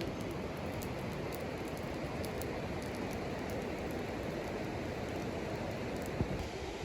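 Campfire burning with a steady rushing noise and scattered small crackles, with one sharper pop about six seconds in.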